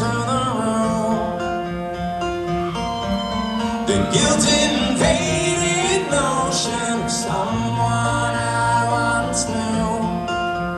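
Acoustic guitar playing an instrumental passage of a slow live rock song, with some wordless singing drifting in around the middle.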